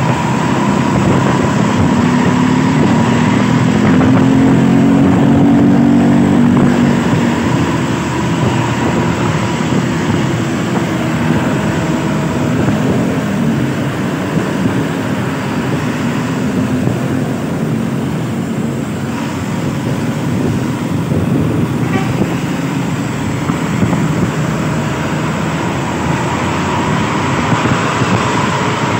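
Mercedes-Benz coach's rear diesel engine running close behind the bus, its pitch rising a few seconds in and swelling and easing again as it revs, with road traffic around.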